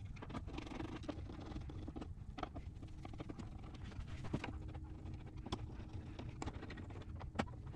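Quiet hand-assembly sounds: a handful of short, light clicks and taps, spaced a second or so apart, as M6 screws are turned in with a hand screwdriver and the metal parts are handled.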